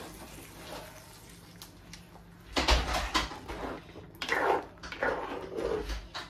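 A spoon stirring and scraping around a clay pot of coconut-milk fish curry, working the just-added tempering through. It is quiet at first, then comes in several uneven bursts of scraping and knocking from about two and a half seconds in.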